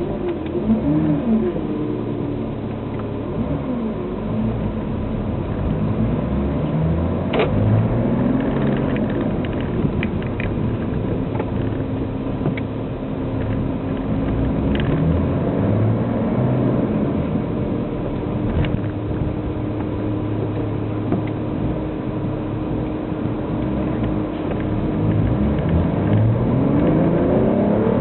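BMW E90 diesel with a straight-piped cat-back exhaust and no silencer, heard from inside the cabin while driving. The exhaust drone rises in pitch as the car pulls through the gears and falls as it eases off, several times, with a steadier drone while cruising in the middle.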